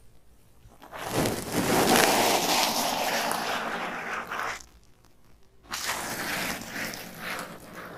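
Cotton pad rubbed and dabbed right against the microphone, making a close, scratchy rustling. It comes in two stretches of a few seconds each, with a brief pause between them.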